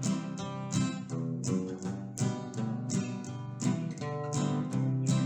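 Background music played on acoustic guitar: picked and strummed notes with frequent sharp attacks, several to the second.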